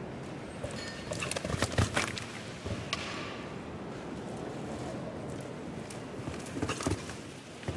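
Show-jumping horse cantering on sand arena footing: hoofbeats, with clusters of sharper knocks about 1.5–2 seconds in, near 3 seconds and again near 7 seconds, over a steady background noise.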